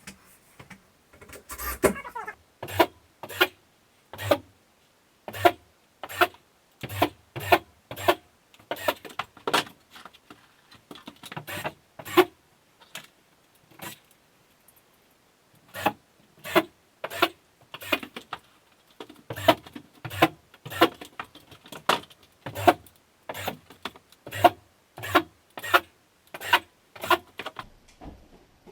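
A long run of sharp knocks, one or two a second, with a short break about halfway through, from work hanging sheetrock panels.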